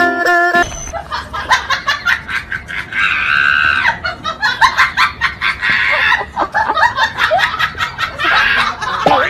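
A person laughing in repeated bursts, over rapid clicking and clattering.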